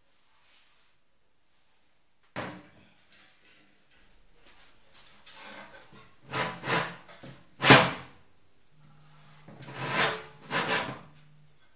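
Hand-formed sheet-metal gas tank panels being handled on a steel workbench: a knock about two seconds in, then scraping and rubbing of metal on metal and several sharp clanks, the loudest a little past the middle.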